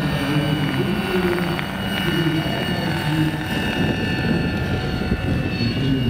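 Large-scale electric model helicopter (Vario Schweizer 300C, Kontronik electric drive, 2.2 m rotor) in flight: a steady high whine from the motor and gearing over the whoosh of the main rotor.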